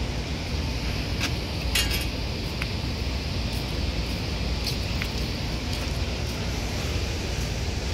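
Steady low outdoor rumble with a few light clicks and ticks scattered through the first five seconds.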